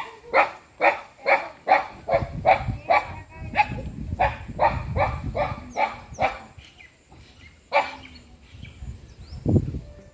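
A dog barking over and over at about two barks a second, stopping about seven seconds in, with one more bark shortly after. A dull thump near the end.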